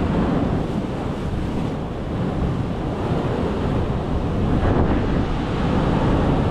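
Wind buffeting the microphone: a steady, loud rushing rumble.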